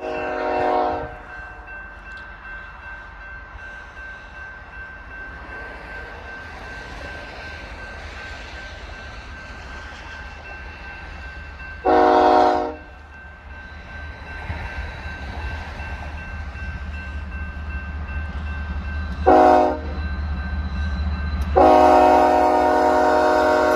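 Diesel locomotive air horn sounding four blasts over a low diesel rumble. Two blasts last about a second each, the third is short and the last is long, in the long-long-short-long pattern of a grade-crossing signal. The engine rumble grows louder as the train draws near.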